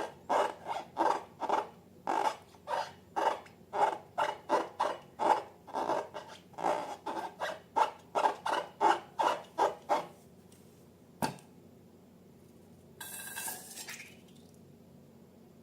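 Slime being squeezed and worked by hand in a steady rhythm, about two wet squishes a second, stopping about ten seconds in. Then a single sharp click and, later, a short hiss.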